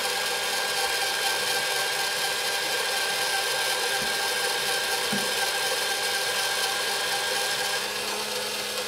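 Small motorised egg-decorating spinner running steadily, turning an egg while a marker tip rubs against the shell. A hum with several steady tones, some of which drop away near the end.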